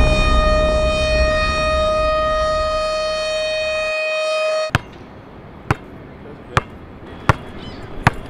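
A single long steady tone with a stack of overtones, held and slowly fading, cuts off suddenly partway through. A basketball is then dribbled on an asphalt court: five bounces about a second apart.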